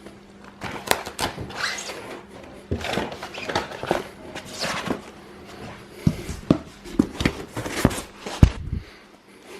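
Parts and packaging of a 3D printer kit being handled during unboxing: rustling wrapping with a run of clicks and clacks, and several heavier thunks of parts set down in the second half. A faint steady hum lies underneath.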